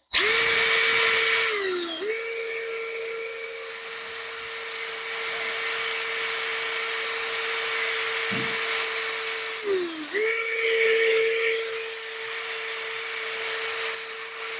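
Cordless drill spinning a small wire wheel brush against a brake caliper bracket, scrubbing rust and debris off it. The drill runs at a steady pitch in three stretches, dipping in pitch and briefly stopping about two seconds in and again near ten seconds.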